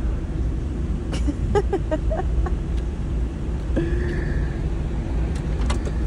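Steady low rumble of road traffic, with a few short clicks between one and two and a half seconds in and a brief held tone about four seconds in.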